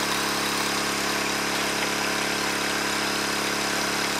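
Small gasoline engine of a backpack water pump running steadily, driving creek water through a hose and down a metal pipe pushed into the streambed gravel.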